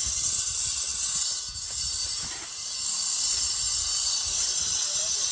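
Steady loud hiss with a low, fluttering rumble underneath, easing briefly about two seconds in.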